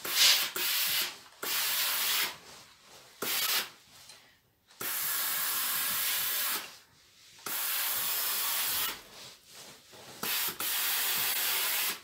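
Steam iron releasing shots of steam while pressed over a towel: about six steady hisses, each lasting up to two seconds, starting and cutting off abruptly.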